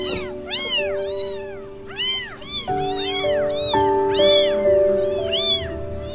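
Several young kittens meowing constantly, their high rising-and-falling cries overlapping at about two a second. Background music of held notes plays underneath.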